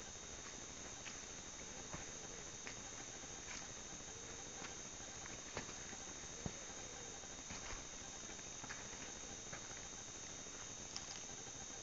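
Steady, high-pitched insect chorus of crickets in a forest, with scattered soft clicks and taps of footsteps on a rocky trail now and then.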